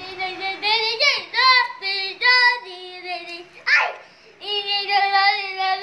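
A child singing in a high voice: long held notes with short breaks, and a quick sliding upward swoop of the voice a little past the middle.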